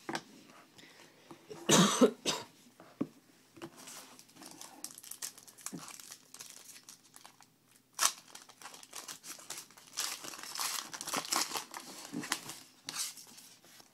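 Foil trading-card pack wrapper crinkling and crackling as it is handled and torn open, most densely in the last few seconds. There is one short loud noise about two seconds in and a sharp click about eight seconds in.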